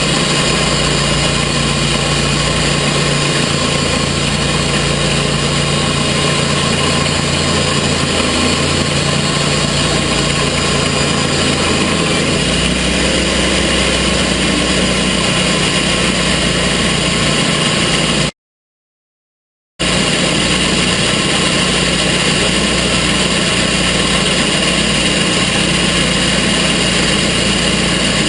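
Gas engine of a TimberKing portable sawmill running steadily at a constant speed. The sound cuts out completely for about a second and a half about two-thirds of the way through, then resumes unchanged.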